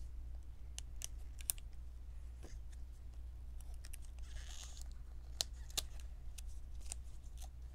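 Small clicks and scratchy handling noises of gloved fingers working at a laptop LCD panel's display cable connector and the tape holding it, with a brief rustle about four and a half seconds in.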